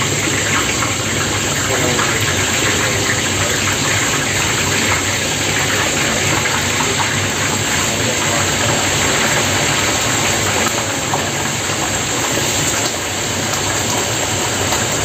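Pieces of fish deep-frying in a large kazan of hot oil: a loud, steady sizzle with dense crackling as the oil foams up around them.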